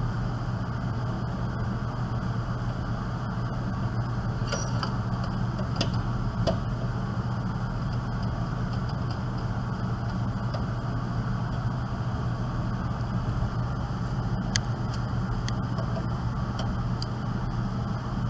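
Scattered light clicks and taps of a desktop computer's power supply unit and its screws being handled and fitted into the metal case. They come in two clusters, near the start and again later, over a steady low hum.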